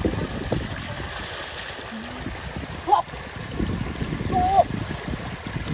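Shallow floodwater running and splashing around legs wading through it, with splashes as a woven bamboo basket is dipped and moved in the water. A few short pitched sounds come in about three seconds in and again near the end.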